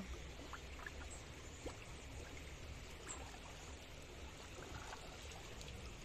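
Faint, steady flow of shallow river water, with a few faint ticks and small splashes scattered through.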